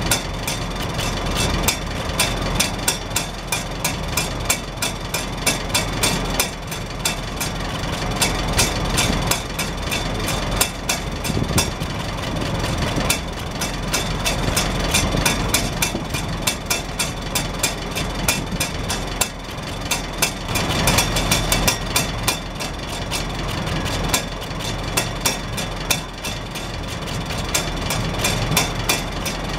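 Farmall Super H's four-cylinder gasoline engine idling steadily. The hinged rain cap on its chrome exhaust stack flaps in the exhaust and taps against the stack in a rapid, uneven clatter.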